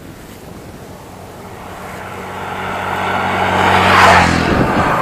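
A road vehicle driving past: its engine and tyre noise grow louder as it approaches, peak about four seconds in with the engine note dropping in pitch as it goes by, then fade.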